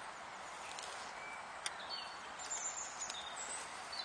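Woodland background: a steady hiss with small birds chirping a few times, high and short, in the second half, and one sharp click about one and a half seconds in.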